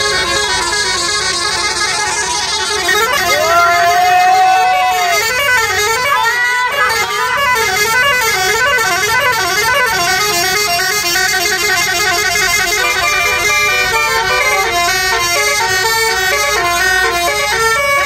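Bus telolet horn, a Basuri multi-tone horn, playing a fast tune of stepping notes without pause. About three seconds in, one long note swoops up, holds, and falls away, and a second rising swoop follows a second or so later.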